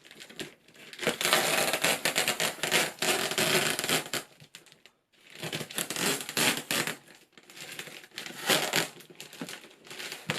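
Cardboard shipping box being opened and handled by hand: crinkling and crackling of cardboard and tape in several spells with short pauses between.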